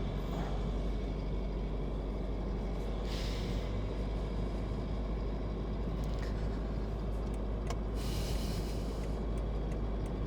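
Steady low drone of engine and tyre noise inside a moving car or 4x4, with two brief rushing hisses, about three seconds in and again near the end.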